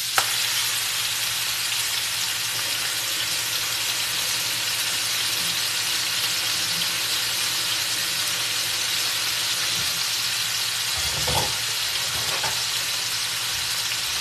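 Thinly sliced pork loin, just added to hot oil in a wok, sizzling with a steady frying hiss. There is a short low knock about eleven seconds in.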